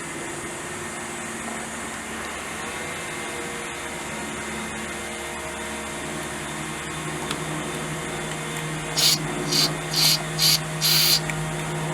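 A steady motor hum with several held tones, joined about nine seconds in by five short, loud hissing sprays in quick succession while gunk is cleaned out of the speedometer head.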